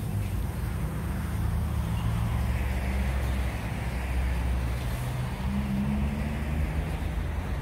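Road traffic: vehicle engines rumbling low, with tyre hiss swelling and fading as a vehicle passes, loudest around three seconds in.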